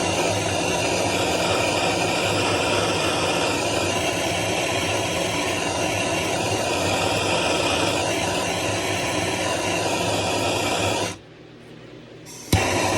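Electric heat gun blowing hot air onto heat-shrink tubing, a steady rush of air over its fan motor's hum. It cuts off about eleven seconds in and starts again with a click a second and a half later.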